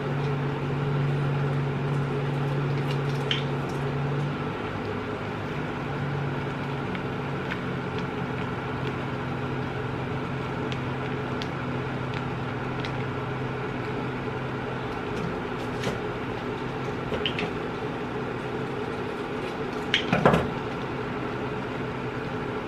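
Plastic sauce sachets squeezed and crinkled over a wok of noodles, soft squishing with a brief louder crinkle about twenty seconds in, over a steady low electrical-sounding hum that is stronger for the first fifteen seconds or so.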